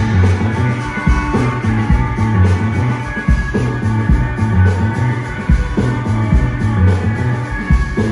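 Live band music: electric guitar, bass guitar and drum kit playing together, with a prominent bass line under a steady drum beat.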